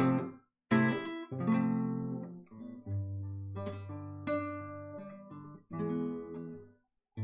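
Nylon-string classical guitar playing an instrumental break: a series of strummed and plucked chords, each left to ring and fade, with two brief silences, about half a second in and just before the end.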